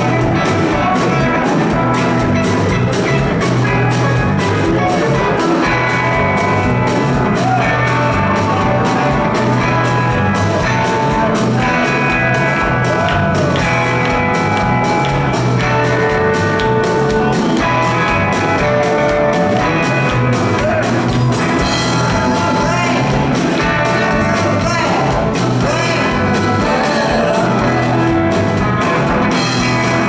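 A rock band playing live: electric guitars, electric bass and a drum kit, with long held notes over a steady beat.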